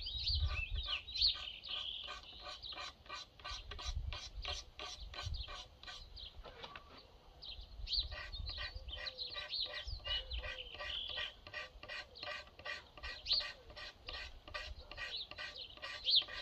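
Small hand shaving tool, like a miniature draw knife, scraping the end of a red elm axe haft in quick, even strokes, about three or four a second, as the haft is trimmed to fit the axe head. The strokes pause briefly partway through, and birds chirp over them.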